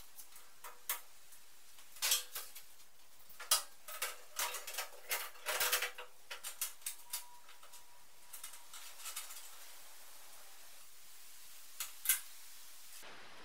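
Scattered metallic clanks, knocks and rattles from a steel sandblasting cabinet being handled and worked on, dense in the first half, with two sharp knocks near the end.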